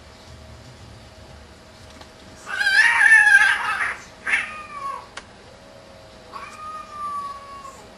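Two tomcats fighting: a loud, harsh screech about two and a half seconds in as they grapple, then a shorter yowl, and a long drawn-out yowl near the end.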